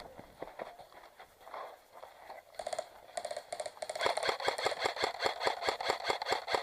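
Airsoft guns firing: a few short bursts of rapid clicking shots, then steadier rapid fire from about four seconds in.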